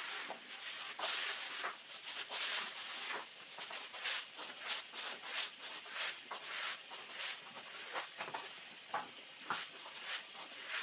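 Stiff-bristled push broom scrubbing a wet, soapy rug, with a rasping swish at each back-and-forth stroke, about one to two strokes a second in an uneven rhythm.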